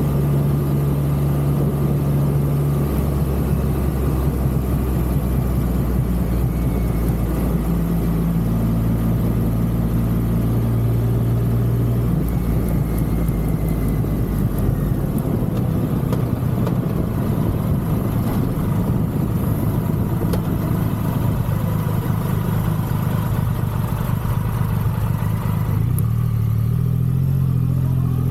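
Triumph Rocket 3's three-cylinder engine running steadily under way, its note shifting a few times, over a haze of wind and road noise.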